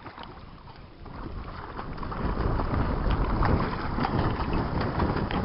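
Wind rumbling on the microphone, building up about two seconds in, over light splashing of water from a paddle dipping beside a small boat and children swimming.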